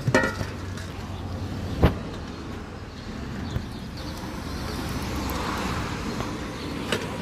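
Sharp clacks of a trick scooter hitting concrete: a few at the very start, the loudest about two seconds in, and another near the end, over steady street traffic noise.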